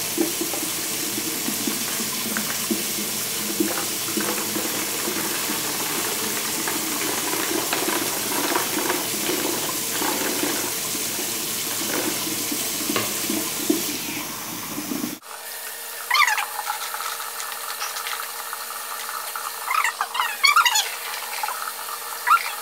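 Water poured from a glass measuring cup into an empty plastic 2-liter bottle, a steady rushing, splashing pour. About fifteen seconds in the sound cuts off abruptly to a quieter stretch with a few brief wavering pitched sounds.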